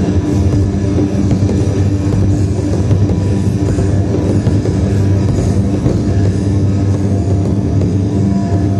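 Loud, dense music with steady held low tones, heavy and rock-like.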